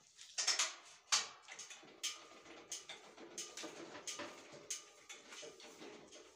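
Metal parts of a homemade band saw mill's safety guard being handled and fitted by hand: irregular clinks, taps and scrapes, with the sharpest knocks about half a second and a second in.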